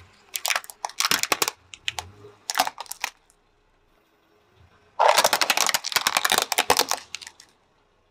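Hard plastic toys cracking and snapping under a car tyre. A toy cart splinters in a series of sharp cracks over the first three seconds. After a short quiet, a plastic face mask is crushed flat about five seconds in, with a dense, loud crackling that lasts about two seconds.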